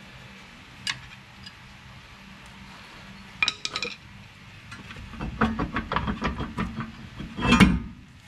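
Metallic clinks and knocks of brake parts and tools being handled: a single clink, a short cluster of clinks, then a busier run of knocks, ending in one louder clunk and scrape near the end.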